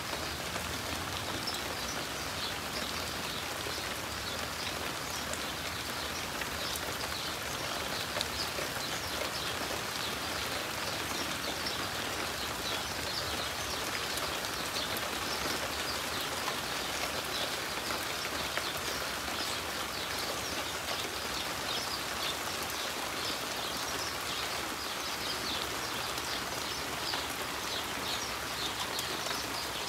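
Steady rain falling, with a dense patter of drops hitting wet surfaces.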